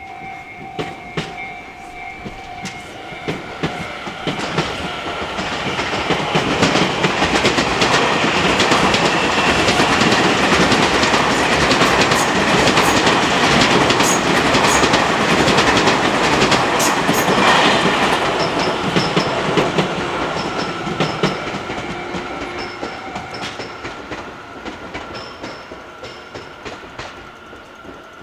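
Tobu Railway electric train passing at a level crossing, its wheels clacking over the rail joints. The sound swells from a few seconds in to a long loud stretch in the middle, then fades away toward the end.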